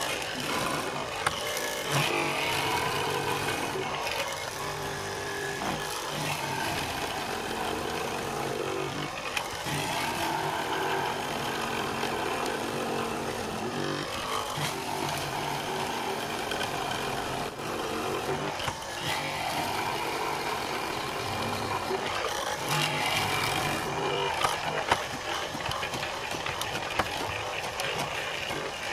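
Hollow-chisel mortising machine running, its chisel and auger plunging again and again into a hardwood beam to cut a mortise. The sound shifts with each plunge every second or two, with occasional sharp clicks.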